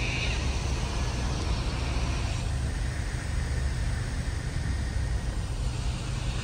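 Steady low rumble of background vehicle noise, with no distinct events.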